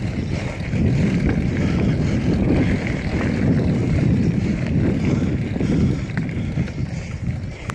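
Wind buffeting the microphone as a mountain bike rides over a gravel track, with tyre noise on the gravel and a few faint clicks.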